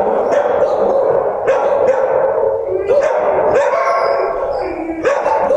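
Shelter dogs barking and howling in the kennels, many calls overlapping into a steady, loud din.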